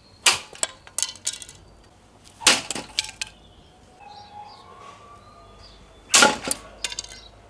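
Katana blade striking and cutting a dry bamboo stake three times: just after the start, about two and a half seconds in and about six seconds in. Each cut is a sharp crack followed by a few lighter clacks.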